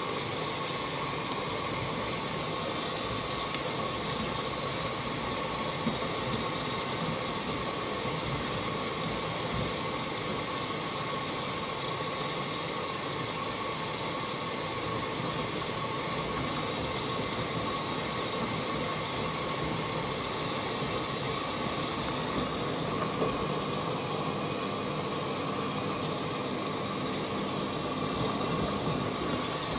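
Miele W1 WMF121WCS front-loading washing machine in its first rinse, the drum turning a wet blanket through the rinse water: a steady motor tone over the swish of water in the drum.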